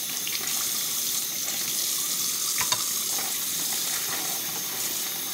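Steady hiss of running water, with two light knocks about two and a half seconds in.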